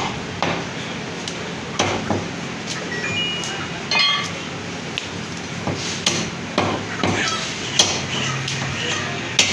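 Butcher's meat cleaver chopping mutton on a wooden log chopping block: irregular sharp blows about once a second, one about four seconds in leaving a brief metallic ring.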